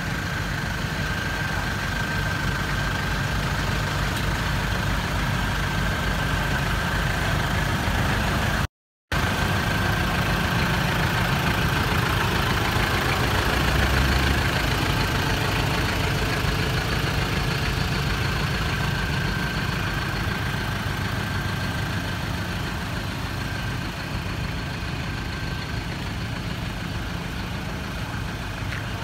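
Engines of parked 4x4 pickups and SUVs idling steadily, with a brief cut to silence about nine seconds in.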